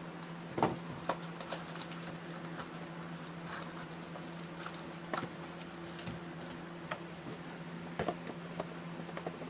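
Hands handling sports-card box packaging: scattered light clicks and taps with crinkling plastic, busiest in the first few seconds, over a steady low electrical hum.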